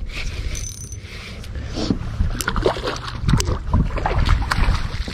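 Wind buffeting the microphone throughout. From about two seconds in come irregular splashes and knocks as a hooked kokanee salmon is worked at the surface beside the dock.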